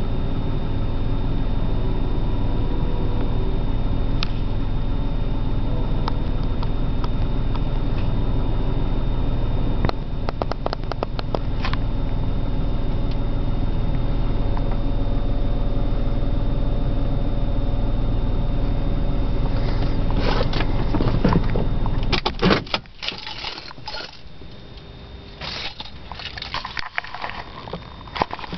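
BMW 328i's 2.8-litre inline-six idling roughly, a steady hum with a few bursts of clicking. About three-quarters of the way through the engine is switched off, and only scattered clicks and rattles are left.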